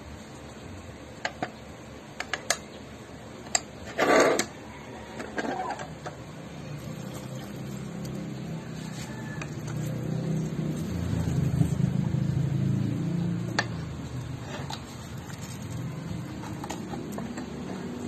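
Clicks and knocks from a metal hand lemon press being handled, with a short louder noise about four seconds in as it is pressed shut. A low hum then swells over several seconds and fades.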